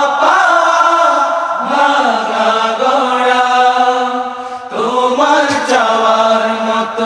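A group of men singing an unaccompanied Bengali Islamic song (nasheed), holding long notes that slide up and down. The singing dips briefly about two-thirds of the way through, then comes back at full strength.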